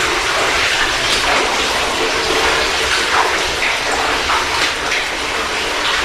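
Steady rush of running water echoing in a tunnel, with a few faint short high squeaks over it.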